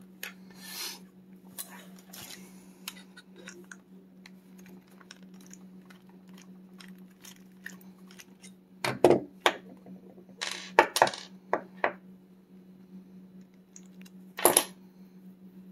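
Small metal clicks and clinks of a padlock being taken apart by hand, with a few louder knocks and clacks of metal parts about nine, eleven and fourteen and a half seconds in.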